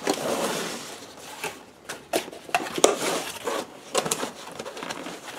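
Cardboard box being opened by hand: lid and flaps rustling and scraping against each other, with several sharp taps and knocks as the box is handled.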